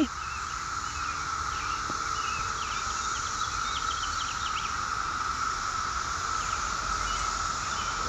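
Chorus of 17-year periodical cicadas: a steady drone at one pitch, many males calling together without a break.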